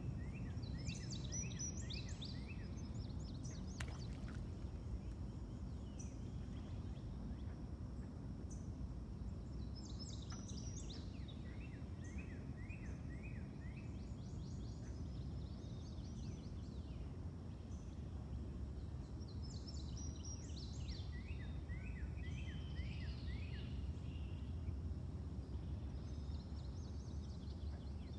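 A songbird repeats the same short song, a quick run of falling high notes lasting about two seconds, roughly every ten seconds: near the start, about ten seconds in, about twenty seconds in and at the end. Underneath is a steady low outdoor rumble.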